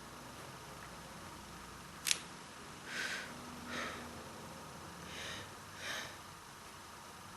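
A single sharp click about two seconds in, then four short breaths through the nose in two quick pairs.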